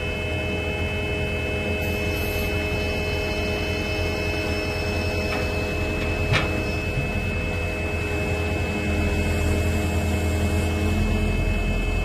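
Kubota KX080 excavator's diesel engine running steadily with its hydraulics working, while the quick coupler releases the bucket. The low hum carries a few constant high-pitched tones above it, and a single short click comes about six seconds in.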